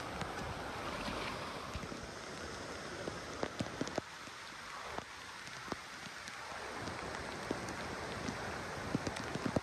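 Water splashing and dripping, with scattered sharp drips and splashes over a steady rushing noise that eases for a few seconds midway.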